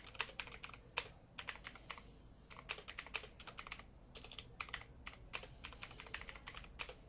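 Typing on a computer keyboard: irregular runs of quick key clicks with brief pauses between them.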